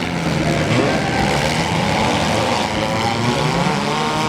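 Four-cylinder demolition derby cars' engines running and revving, with one engine's pitch rising about a second in.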